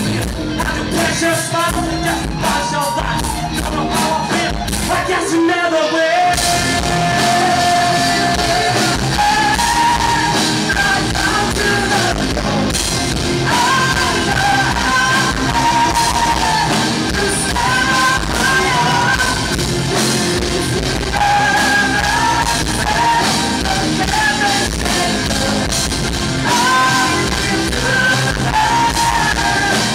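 Progressive rock band playing live, with sung vocal lines over the full band. The bass and drums drop out briefly about five seconds in, and the band comes back in fully about a second later.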